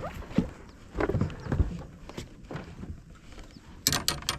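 Handling noise as a freshly caught largemouth bass is dealt with: scattered knocks and taps at irregular spacing, then a quick run of sharp clicks near the end.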